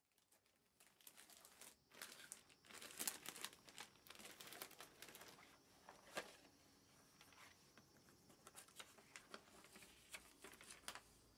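Plastic packaging of a new cardboard cat scratcher crinkling and rustling as it is handled, faintly, in irregular crackles that are loudest about three seconds in and again about six seconds in.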